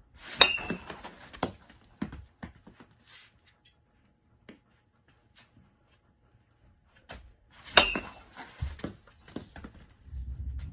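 Baseball bat striking a ball off a batting tee twice, about seven seconds apart, each hit a sharp crack with a brief ring. Each is followed by smaller knocks as the ball hits the net and bounces on the floor, and a low rumble comes near the end.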